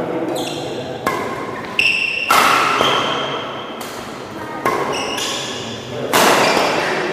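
Badminton racket strings hitting a shuttlecock, about six sharp hits spaced irregularly through a doubles rally, each with a short ping and a trail of echo.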